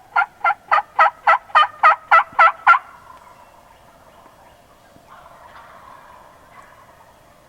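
Turkey yelping: a steady run of about a dozen two-note yelps, roughly three or four a second, getting louder, that stops about three seconds in. After that there is only faint background.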